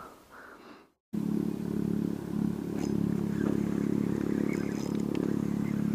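A steady engine hum starts about a second in, right after a brief gap of silence.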